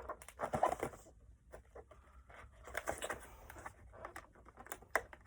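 Packaging of a keyboard box being handled and pulled at: short bouts of rustling and scraping with light taps, and a sharp click near the end.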